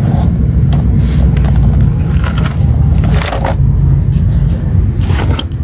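Low rumbling noise on a handheld microphone moving through a garden, with a few scattered knocks and rustles from handling and steps.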